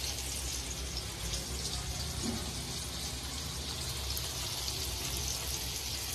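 Rice-flour-coated dhoma fish frying in shallow oil on a thick tava, a steady sizzle of hot oil.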